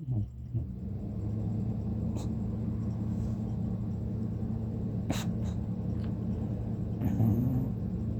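Snoring: a steady low rumble that sets in at once and holds evenly, with a few faint clicks over it.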